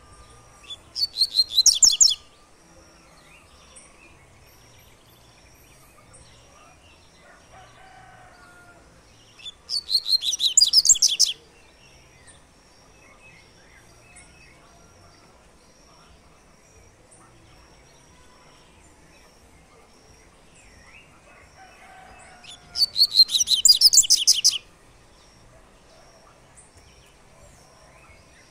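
Caged double-collared seedeater (coleiro) singing its 'tui-tui' song three times: bursts of about two seconds of fast, high repeated notes that swell in loudness, with long pauses between them.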